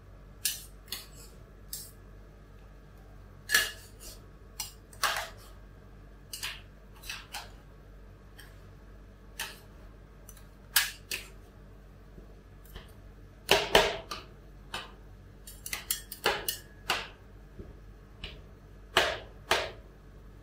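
Steel spatulas clacking and scraping on the frozen steel plate of a rolled-ice-cream pan as bananas are chopped into the setting cream base. The sharp, irregular clacks come in a busier run a little past the middle.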